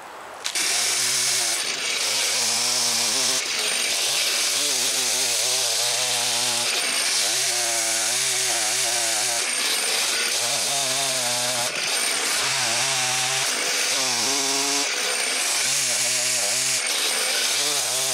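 Two-stroke gas chainsaw at full throttle, cutting down into a large tree stump. It revs up about half a second in, and its engine note wavers up and down as the chain bites into the wood under load.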